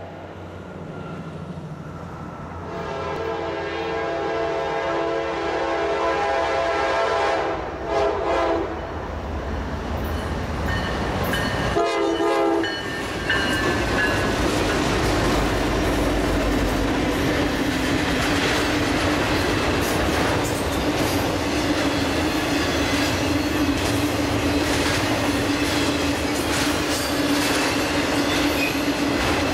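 A Norfolk Southern intermodal freight train headed by five diesel-electric locomotives approaches and passes. The lead locomotive's air horn sounds a long chord with a short break near the end, then a brief blast a few seconds later, over the rising rumble of the diesels. The engines then go by and the intermodal cars roll past with a loud, steady clatter of wheels on rail and a steady high tone running through it.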